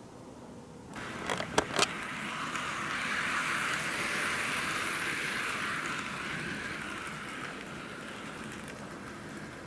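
N gauge model train running along the track: a few sharp clicks about a second in, then a steady rolling whirr that swells and slowly fades as it passes.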